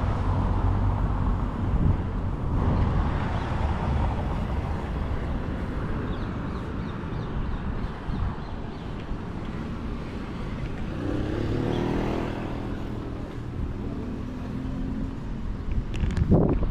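Street traffic: cars running with a steady low rumble, one engine passing around the middle, and a short louder noise near the end.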